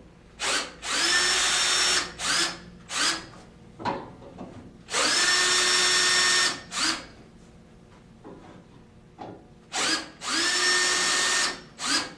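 Cordless drill backing bolts out of an aluminum chaise lounge frame. It runs in three longer bursts that each spin up and then hold a steady whine, with short trigger blips between them.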